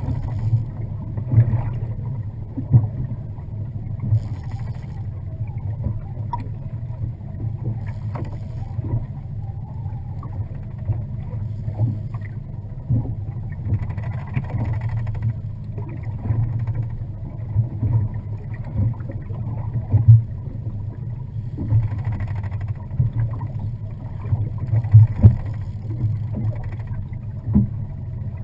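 Boat motor running steadily with a low hum, under irregular knocks and thumps.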